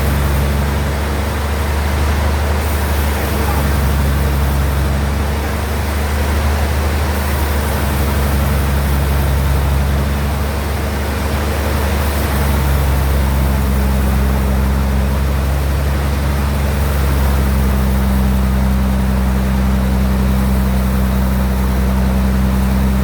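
Sawmill bandsaw machinery running steadily under power, a loud low hum over a rushing hiss, its pitch shifting slightly several times.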